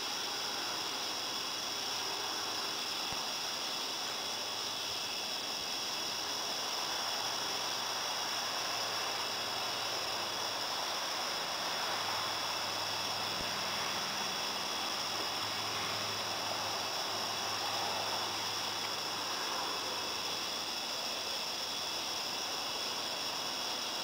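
Crickets chirping in a steady, unbroken chorus of high trills, over an even background hiss.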